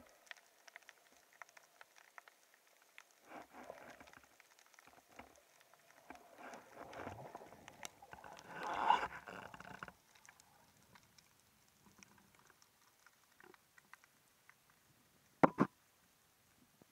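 Underwater sound of a diver moving along a rocky reef: swells of water noise against the camera, loudest about nine seconds in, over faint scattered crackling. Two sharp knocks come close together near the end.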